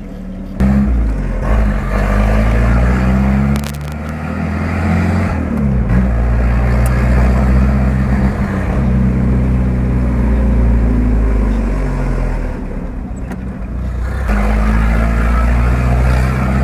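Chevrolet Opala engine running loud through an exhaust opened by a button-operated cutout, its level jumping up suddenly about half a second in. It is revved, easing off for a moment around four seconds and again a couple of seconds before the end, then coming back up.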